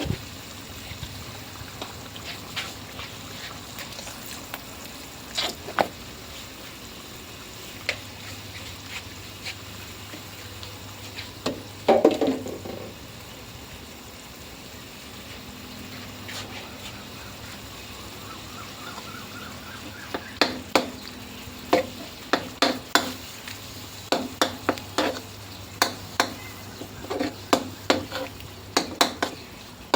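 Green curry being stirred in a pan over a steady sizzle, the utensil clicking and knocking against the pan. There is a loud cluster of knocks about twelve seconds in and frequent knocks in the last ten seconds.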